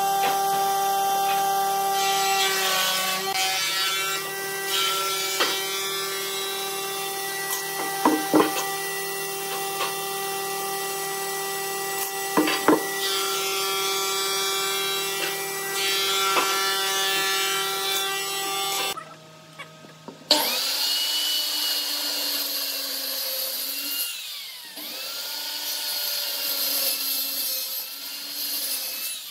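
A handheld circular saw cutting into a thick pine post over the last third, its motor pitch dipping and recovering as the blade loads in the wood. Before that, a steady hum with a few taps and scrapes as the post is marked out with pencil and steel square.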